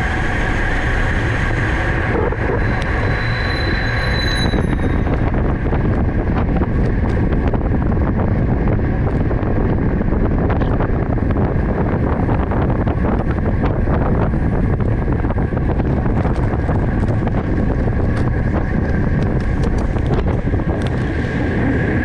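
Steady wind rushing over the microphone of a camera on a moving bicycle, with a loud, even road rumble underneath. A short high squeal comes about three seconds in.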